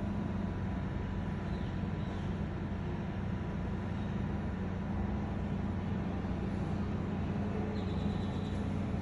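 Steady low machine hum over a constant rushing noise, unchanging throughout.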